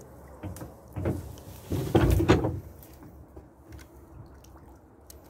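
Knocking and creaking from a small boat, with a louder knock and scrape about two seconds in and lighter knocks before it.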